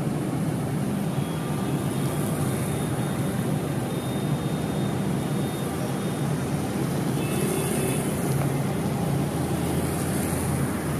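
Motorcycle engines running and tyres hissing on a rain-soaked road as a police motorbike escort passes, over steady traffic noise. The high hiss swells twice, in the second half, as vehicles go by.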